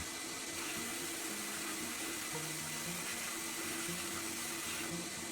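Sandblaster hissing steadily as abrasive blasts paint and rust off the toy truck's steel parts, with faint short musical tones underneath.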